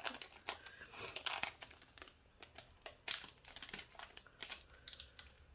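Packaging of a Hobonichi Weeks planner crinkling and tearing as it is unwrapped by hand, in a run of short, irregular rustles.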